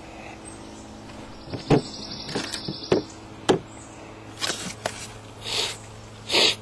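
Handling noise: several sharp knocks and clicks, then two short rustling bursts near the end, over a steady low hum.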